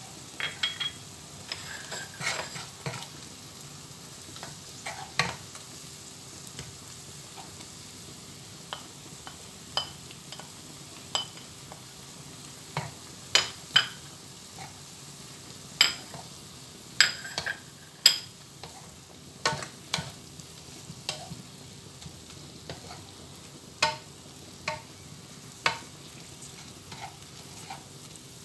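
Water spinach being stir-fried in a nonstick wok with a wooden spatula, which knocks and scrapes against the pan at irregular intervals over a steady sizzle of frying.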